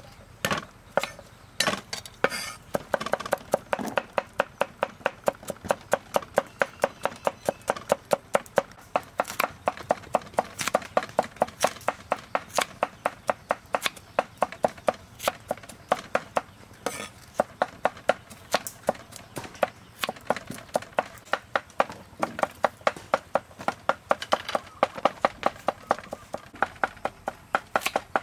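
Kitchen knife chopping on a thick round wooden chopping board: quick, even knocks of the blade through garlic and vegetables into the wood, about four a second.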